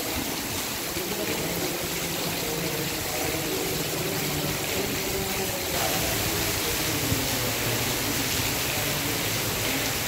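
Heavy downpour: a dense, steady hiss of rain falling on a road, trees and crops. It grows a little louder about six seconds in.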